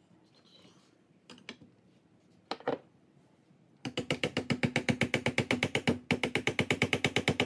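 A hand ratchet wrench clicking rapidly, about ten clicks a second, for several seconds with a short break about six seconds in; a few single clicks and knocks come before it.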